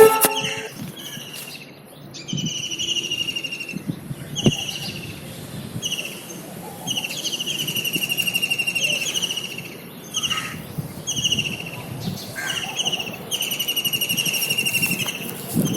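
Kingfisher calling: a series of short sharp notes broken up by three longer rattling trills.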